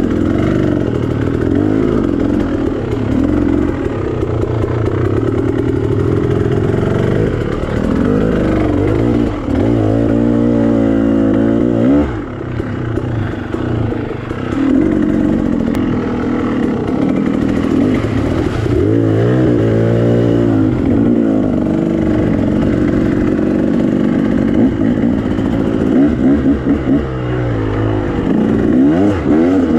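KTM 300 XC two-stroke dirt bike engine being ridden on a trail, the throttle opening and closing so the engine note repeatedly climbs and drops, with the clearest climbs about ten, nineteen and twenty-nine seconds in.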